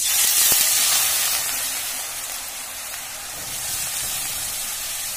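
Shredded raw potato dropped into hot peanut oil in a kadhai, setting off a loud frying sizzle as the oil foams up around it. The sizzle starts suddenly, is strongest over the first second or so, then eases a little and keeps on steadily.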